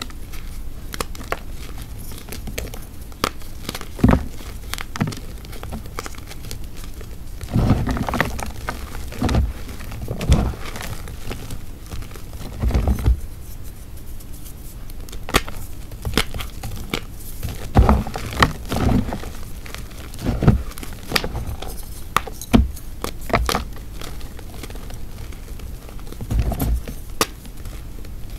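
Dried Ader gym chalk hearts, made of only chalk and water, being crushed and crumbled: constant fine crackling with heavier crunches every few seconds.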